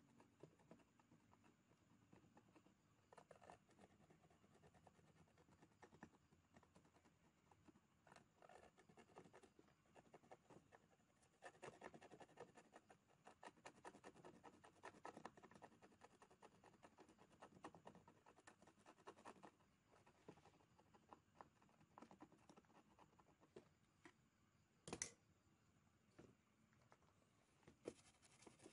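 Faint scratching and small clicks of hand tools working on an ECU circuit board. The scratching is densest in the middle, and one sharper click comes near the end.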